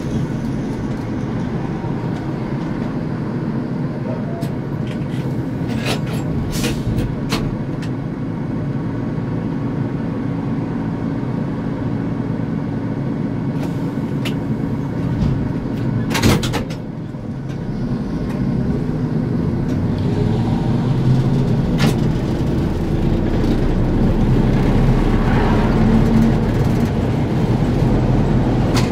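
ZiU-682G trolleybus running along a road: a steady hum with road noise and a few sharp clicks and rattles. A loud knock comes about 16 seconds in, and the running noise grows louder over the last ten seconds.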